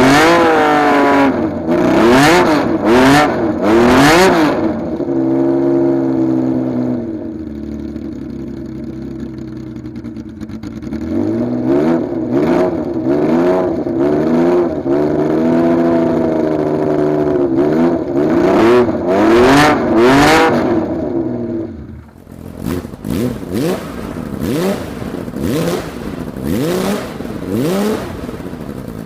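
Honda CBX 1050's air-cooled inline-six engine revved in repeated throttle blips, its pitch rising and falling with each one. It settles to a lower, steadier run for a few seconds near the middle, and after a sudden drop about three-quarters of the way through, a rapid series of short, sharp blips follows.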